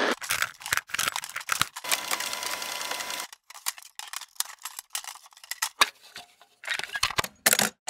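Mechanical clicks and clatter of a record player being set up as a vinyl record goes on: the tonearm and its mechanism clicking and ticking. The clicks come fast for the first few seconds, thin out in the middle, and return in a louder cluster near the end.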